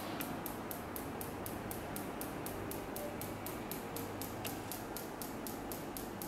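Slight, rapid, regular clicking of a radial shockwave therapy device in a neighbouring treatment room, about four to five clicks a second.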